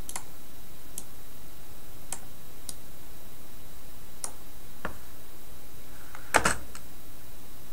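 Scattered clicks of a computer mouse and keyboard: about six single clicks, then a louder quick cluster near the end, over a steady hiss.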